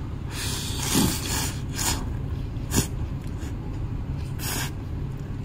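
Buckwheat soba noodles being slurped in about four short, hissy bursts, the first and longest over a second long. A steady low hum runs underneath.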